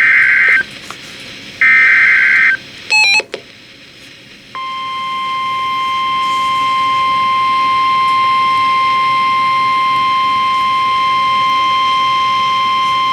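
Emergency alert activation on NOAA Weather Radio. Two bursts of the SAME data header's warbling digital tones and a short blip are followed, about four and a half seconds in, by the steady 1050 Hz warning alarm tone, which holds for about nine seconds.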